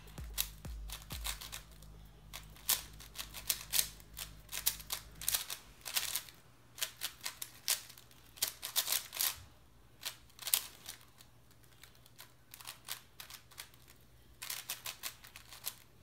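Rapid plastic clicking and clacking of a Cubicle Wushuang M 5x5 speed cube being turned in quick bursts of layer moves, with a quieter lull of a few seconds before a final flurry.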